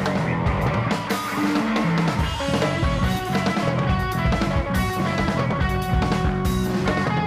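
Background music with guitar and drums and a steady beat.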